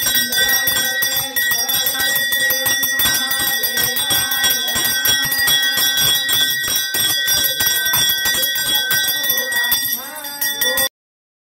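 Temple pooja bell rung rapidly and continuously, its ringing overtones held throughout. It cuts off suddenly about a second before the end.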